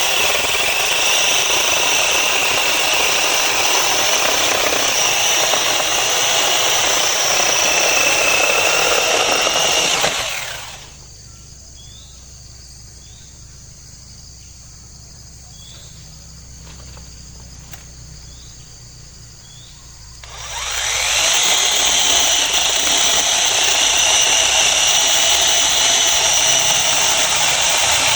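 Battery electric chainsaw running with a steady high whine as it cuts through dry, rotten deadwood, holding its speed without bogging down. About ten seconds in it stops. A few faint chirps are heard during the pause, and about twenty seconds in the saw spins up again and carries on cutting.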